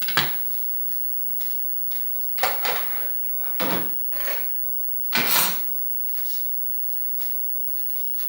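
Kitchen knife cutting the crown off a pineapple, with several separate knocks and clatters of the blade and kitchenware on the cutting board and counter; the loudest knocks come at the very start and about five seconds in.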